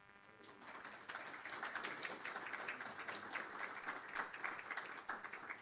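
Audience applauding. The clapping starts about half a second in and fades out shortly before the end.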